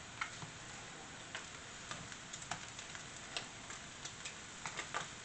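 Slices of SPAM frying with a faint steady sizzle in a nonstick skillet, broken by scattered, irregular clicks of a metal fork against the pan as the slices are turned over.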